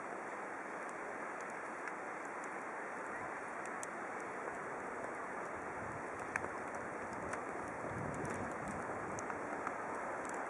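Steady city traffic noise from cars driving on a snow-covered road, growing a little louder about eight seconds in as the cars come closer.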